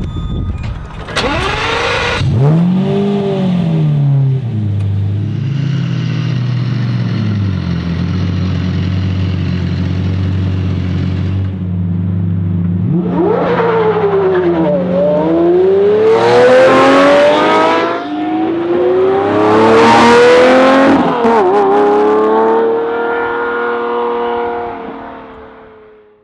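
Lamborghini Murciélago LP670-4 SV's V12 through an LNB exhaust: a blip of revs, then a steady idle, then a hard launch. Revs climb at full throttle through two upshifts as it pulls away, and the sound fades into the distance.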